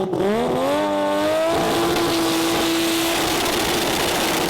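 Engine of a 2700 hp drag-racing Holden VL Commodore at full throttle. Its note climbs for about a second and a half, then holds high and steady under a growing rush of noise, and fades into that noise about three seconds in.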